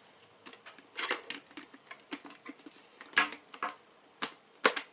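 Hard plastic parts of a handheld car vacuum being handled: irregular light clicks and clacks, the sharpest about a second in and near the end, as the dust cup and filter are fitted back together.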